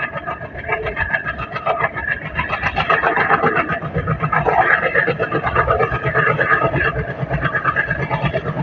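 A passenger train running behind an Alco WDM-3A diesel locomotive, heard from a following coach. The wheels and the coach keep up a continuous rapid rattle, mixed with the engine's running noise.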